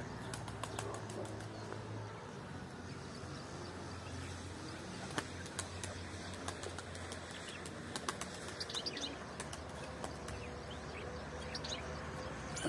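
Faint wing-flapping of a Turkish tumbler pigeon in flight, with scattered soft wing claps. A few brief small-bird chirps come about two-thirds of the way in.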